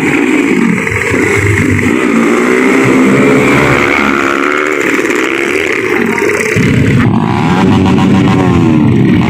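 Several motorcycle engines revving, their pitch rising and falling over and over as the throttles are worked. It gets heavier and deeper from a little past the middle.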